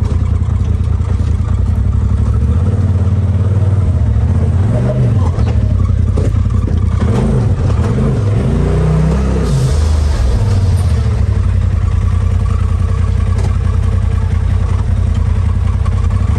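Polaris RZR side-by-side's engine running at low revs, with a few short revs rising and falling about seven to nine seconds in, followed by a brief hiss.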